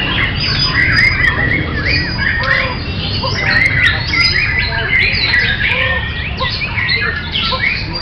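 White-rumped shamas (murai batu) singing, several birds at once: a dense, continuous tangle of rapid, sliding whistles and chattering phrases, over a steady low background rumble.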